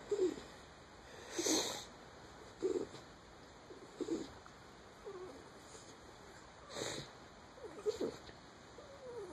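Miniature schnauzer's labored breathing near death: each breath carries a short, soft moan, coming about once every second or so, with a couple of louder breathy rushes.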